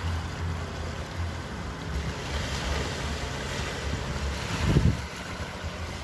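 Ocean waves washing and breaking, with wind buffeting the microphone. The waves swell and fall, and the loudest one breaks about three-quarters of the way through.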